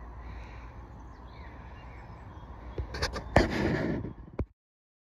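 Low outdoor background rumble, then a few sharp knocks and a short burst of rustling noise about three seconds in. The sound then cuts off abruptly to silence.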